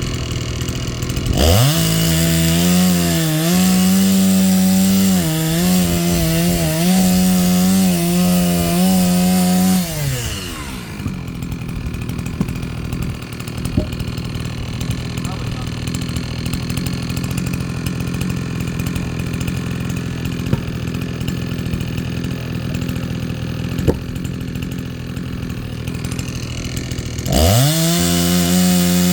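Chainsaw revving up to full speed to cut firewood, its pitch dipping slightly under load for about eight seconds. It then drops back to a steady idle for most of the rest and revs up again near the end.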